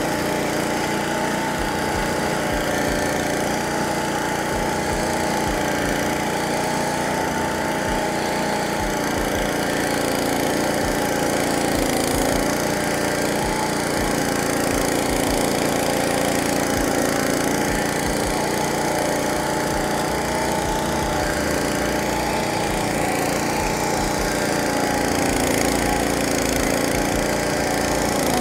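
Caiman Rolo 70H walk-behind flail mower running at steady working speed while mowing tall grass, its Honda engine's hum dipping slightly in pitch now and then as the load changes.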